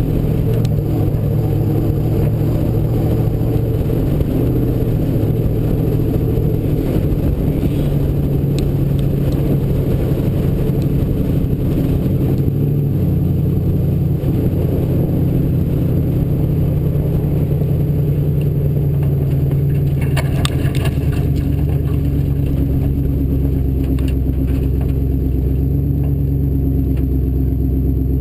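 Engine of a Ford Bronco off-road race truck running steadily under load. The engine note shifts about halfway through, and there is a short rattle about two-thirds of the way in.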